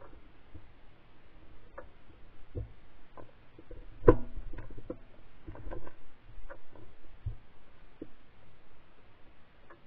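Handling noise from a gun-mounted camera: scattered knocks, taps and rustles as the shotgun is carried through brush and swung up, the loudest knock about four seconds in.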